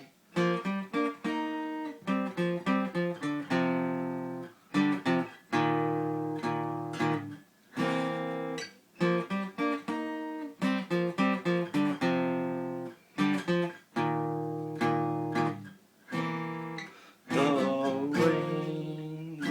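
Acoustic guitar playing an instrumental break: rhythmic chords and picked notes in a bluesy pattern, with several brief sudden stops where the strings are damped.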